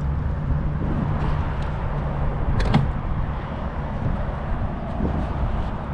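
Camera and bike handling noise: light knocks and one sharp click about two and a half seconds in, over a steady low rumble.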